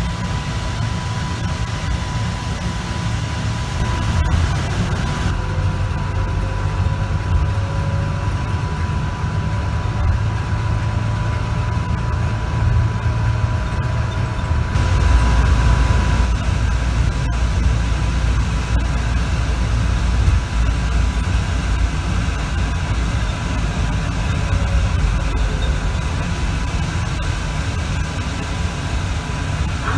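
Frankfurt Airport SkyLine people mover running along its elevated guideway, heard from inside the car: a steady low running rumble with a thin, steady high whine. The rumble grows heavier about halfway through.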